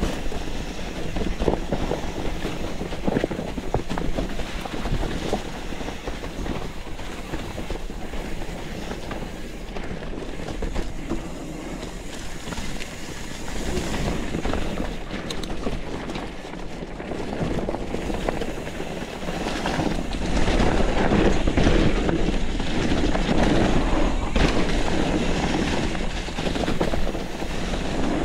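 Mountain bike rolling fast down a dirt forest trail: tyre noise with the chain and frame rattling and knocking over rough ground. It gets louder about two-thirds of the way through.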